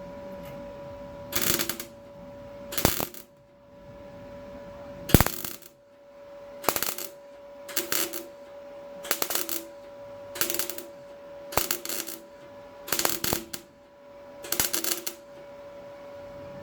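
Welder laying a series of short tack welds on car floor sheet metal: about ten brief crackling bursts, roughly one every second and a bit, some starting with a sharp pop, over a steady hum.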